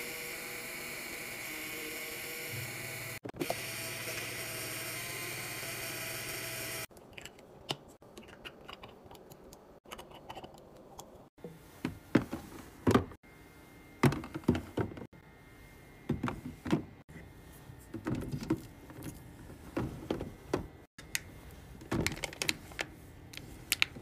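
A refrigerator-door water dispenser runs a steady stream of water into a plastic bottle for about seven seconds, with a low hum joining partway through. It then cuts off, and a run of sharp clicks and knocks follows as capped plastic bottles are handled and set down on the shelf of a mini fridge.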